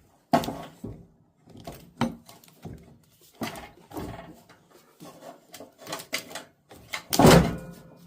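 Knocks and clunks of a riding-mower battery being handled and set into its mount, with the loudest thud about seven seconds in.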